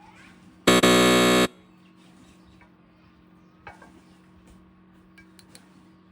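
A loud, harsh buzz lasting just under a second, about a second in, over a steady low hum; a few faint clicks follow.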